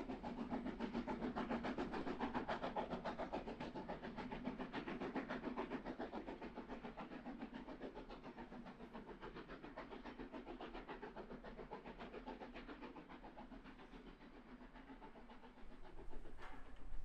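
DR Class 99.23–24 narrow-gauge steam tank locomotive working hard, its exhaust beating rapidly and evenly as it draws away and fades into the distance. The sound changes to a different background about a second before the end.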